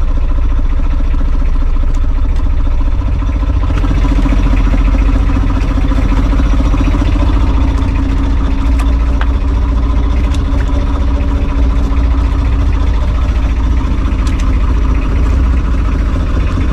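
Outrigger fishing boat's inboard engine running steadily close by, with a low, even throb. It gets slightly louder about four seconds in.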